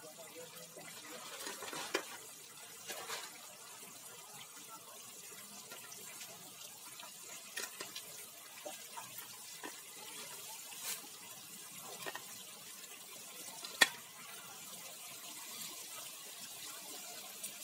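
Faint bubbling of a curry gravy simmering in a pan. Fried fish pieces are set into it by hand, with scattered soft clicks and taps; the sharpest comes near the end.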